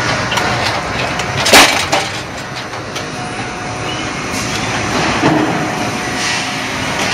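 Sawmill log-handling machinery running: a log feeder and roller conveyor moving a log, with a steady mechanical noise. A loud knock about a second and a half in, a smaller one just after, and another knock around five seconds in.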